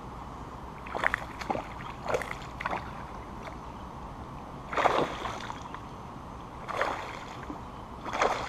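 A hooked fish splashing and thrashing at the water's surface as it is played on a light spinning rod, in short irregular splashes, about seven of them, the strongest about halfway through.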